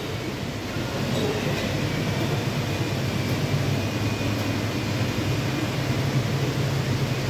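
Steady low rumbling hum of background noise, a little louder from about a second in.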